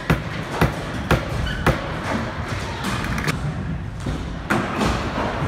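Skateboard on concrete and a wooden ramp: a string of sharp clacks and thuds as the board strikes the surface, over the low rumble of its wheels rolling. Four clacks come about half a second apart near the start, with a few more later.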